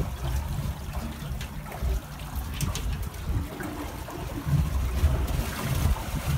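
Water trickling and sloshing at the side of a drifting boat, under an uneven low rumble of wind on the microphone, with a few faint sharp ticks near the middle.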